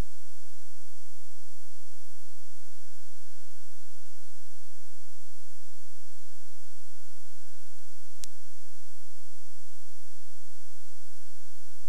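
Steady electrical hum with a faint high whine and hiss, and nothing else going on; a single sharp click about eight seconds in.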